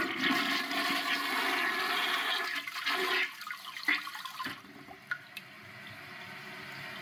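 Toilet flushing: a loud rush of water for about three seconds, which then drops to a quieter, steady running of water.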